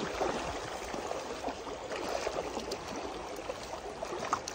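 Shallow river water running steadily over a stony riffle.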